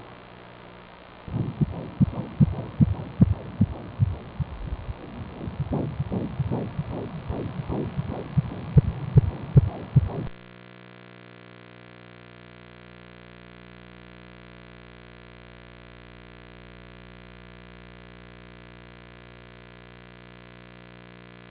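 Ultrasound machine's Doppler audio of a five-month fetus's heartbeat: fast, even pulses a little over two a second. About ten seconds in they cut off abruptly, leaving a steady electrical hum from the machine.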